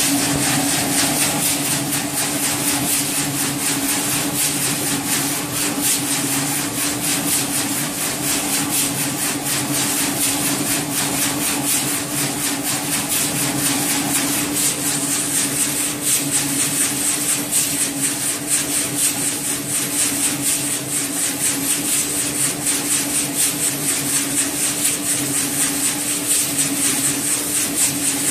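Nail polishing machine running: loose steel nails tumbling inside the rotating drum make a dense, steady rattle with a bright hiss, over a steady hum.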